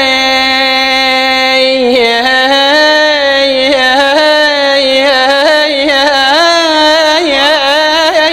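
A man singing solo and unaccompanied, holding one long drawn-out vowel of an Iraqi abudhiya mawwal. About two seconds in, the held note breaks into quick ornamental turns.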